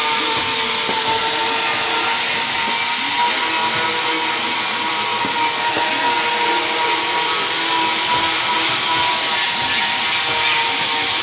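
Electric angle grinder fitted with a foam polishing pad, running steadily as it buffs a stainless steel sheet: a constant motor whine with a steady high tone over a hiss.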